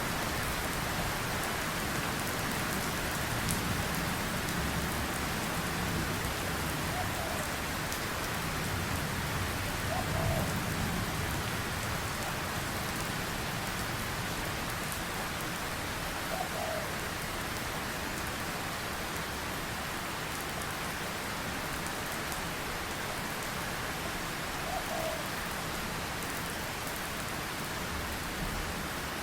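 Steady rain falling, an even hiss of drops with no let-up. A few faint, short tones sound now and then above it.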